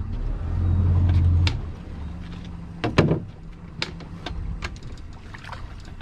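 A low rumble for about a second, then a string of sharp knocks and clicks on the boat, the loudest about three seconds in.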